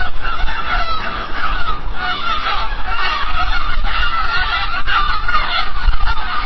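A flock of seagulls calling, many cries overlapping without a break, over a low steady rumble.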